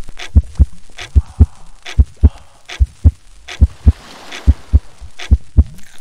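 Heartbeat sound: deep double thuds, lub-dub, repeating steadily about every 0.8 seconds.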